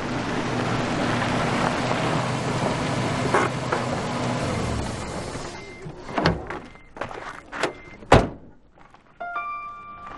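A Toyota Land Cruiser pickup drives up on gravel and stops, its engine and tyres fading out. This is followed by the clicks of its door and one loud door slam about eight seconds in. Soft musical notes come in near the end.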